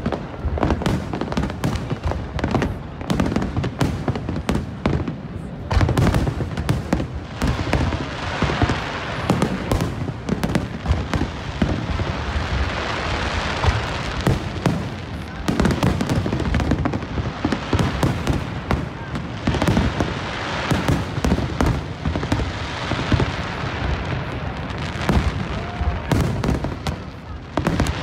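Aerial fireworks display at full pace: shell after shell bursting in a dense barrage, with no break.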